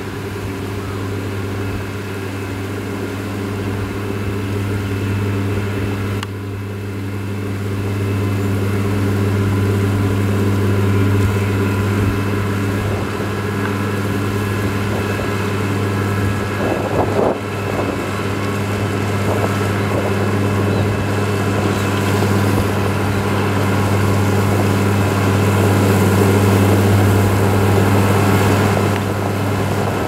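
Komatsu GD505A motor grader's diesel engine running steadily under load while its blade pushes soil and gravel, growing gradually louder as the grader comes closer.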